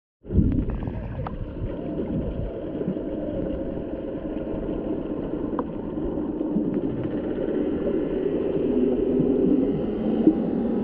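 Underwater ambience picked up by a submerged camera: a steady, muffled low rumble and gurgle of water, with a few faint clicks.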